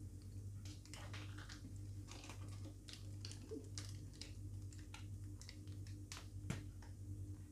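Faint scattered crackles and soft clicks of hand work: a plastic piping bag being squeezed as cream is piped onto a sponge cake layer on a turntable. A low steady hum runs underneath.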